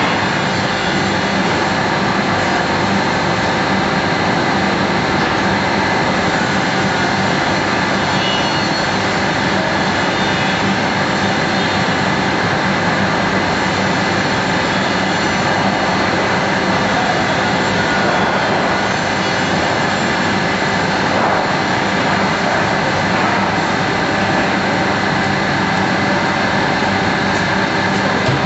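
Steady industrial machine noise: an even whirring rush with several constant humming tones underneath.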